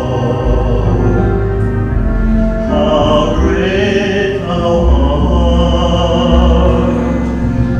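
A man singing a gospel hymn into a handheld microphone, amplified through a PA speaker, over an instrumental backing track, holding long notes.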